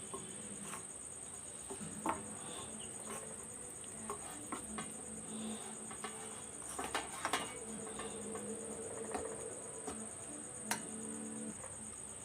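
A spoon scraping and clicking lightly against a bowl as gram flour and oil are stirred into a smooth, lump-free paste, with a few louder clicks about two, seven and eleven seconds in. A steady high-pitched whine sits under it.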